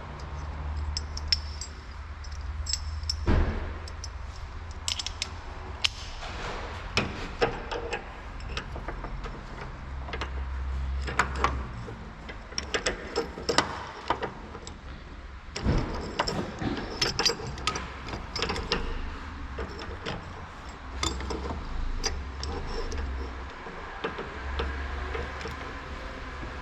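Metal tools and parts clinking, rattling and knocking as they are handled and sorted through, in irregular runs of sharp clicks, over a low steady hum.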